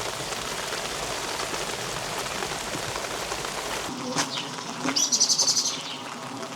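Steady rain falling on stone streets, with a small bird's rapid, high chirping trill about five seconds in.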